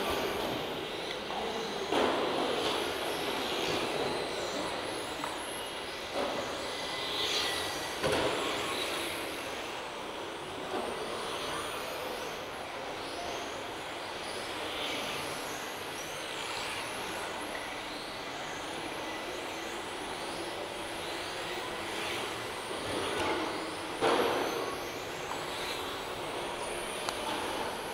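Radio-controlled electric touring cars with 17.5-turn brushless motors racing together, their motors and gears whining in pitches that rise and fall as they speed up, slow and pass, over steady tyre noise on the track. A few sharp knocks come through, about four in all.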